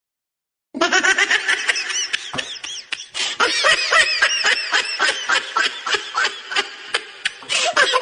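High-pitched, hearty laughter in rapid ha-ha pulses, starting after a short silence under a second in.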